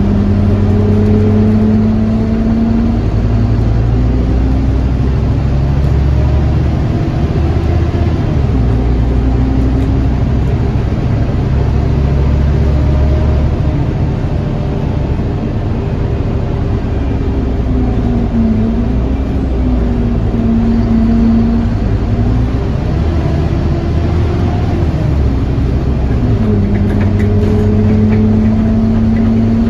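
Scania N230UD double-decker bus's diesel engine and driveline heard from inside the bus as it drives at speed. It pulls steadily, and its note dips and climbs again several times.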